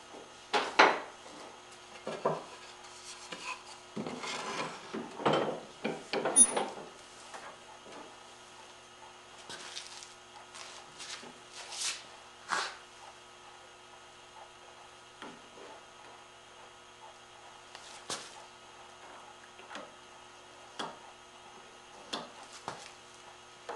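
Wooden boards and small hand tools being handled on a wooden workbench: scattered knocks and clicks, with a spell of rubbing and scraping about four to seven seconds in, then only occasional light taps.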